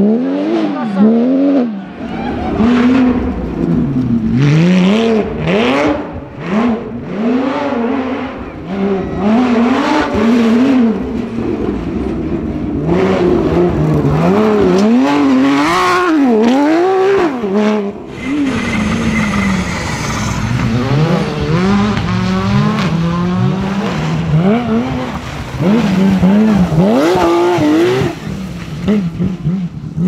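Porsche 911 GT3 rally cars' flat-six engines revving hard, the pitch climbing and falling again and again through gear changes and lifts, as the cars pass one after another.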